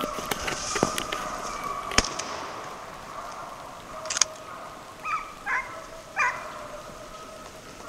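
Deer hounds baying in the distance on a chase, a drawn-out steady chorus with three short calls about five to six seconds in. A few sharp clicks sound in the first two seconds and again around four seconds.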